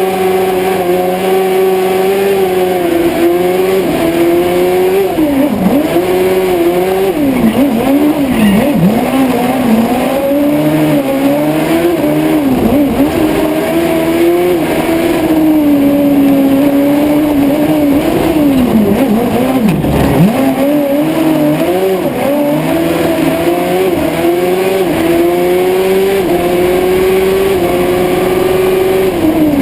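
Honda Hornet 600 inline-four motorcycle engine in a racing Piaggio Ape, driven hard: it revs up and drops back again and again as the driver shifts gears and lifts off for corners, with a few sharp deep dips where the revs fall away.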